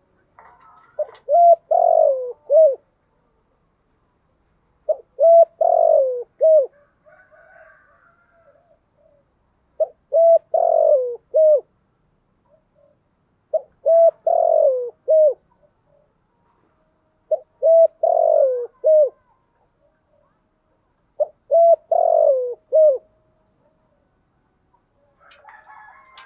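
Spotted dove cooing: six repeated phrases about every four seconds. Each phrase is a few short coos around a longer, falling coo.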